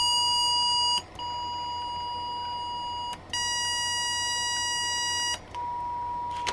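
Audio tone from a function-generator kit, played through headphones, stepping through its waveforms at each press of the waveform button. A buzzy square wave switches to a softer triangle wave about a second in, then to a brighter sawtooth about three seconds in, and to a pure sine tone near the end. Each change brings a brief break and a click.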